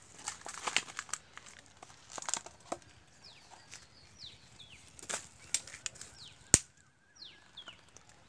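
Dry leaf litter and twigs crackling and rustling underfoot in a string of short, uneven crackles, with one sharp snap about six and a half seconds in.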